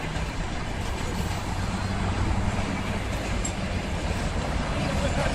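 A train rolling past at close range, passenger coaches giving way to flatcars: a steady rumble of wheels on the rails.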